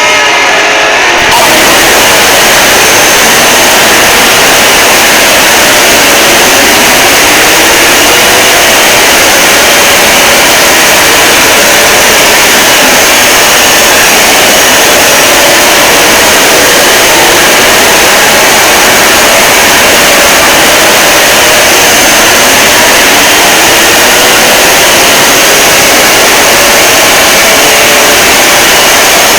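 Emergency Alert System alarm audio pushed to an extreme, distorted loudness: a harsh, steady wall of noise with sweeping pitch glides running through it. About a second in, separate alarm tones give way to the full noise.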